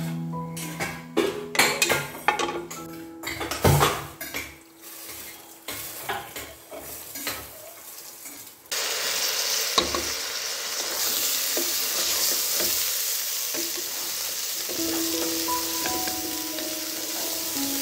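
Knocks and clinks in an aluminium pot, then about nine seconds in a sudden loud, steady sizzle as rice hits the hot oil and whole spices. A wooden spatula stirs and scrapes through the frying rice.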